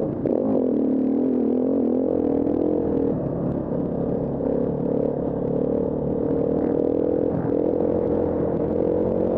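KTM 350 Six Days dirt bike's single-cylinder four-stroke engine running hard under throttle while riding off-road, its pitch dipping briefly with the throttle just after the start and again at about seven and a half seconds.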